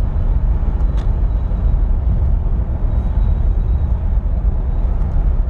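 Steady road and engine noise inside a 1998 BMW 740i's cabin, cruising at about 45 to 50 mph, with no shudder now that the front control arms and thrust arms are new.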